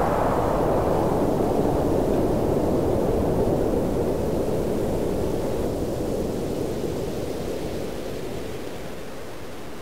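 A steady rushing noise that grows duller over the first few seconds and then fades out gradually.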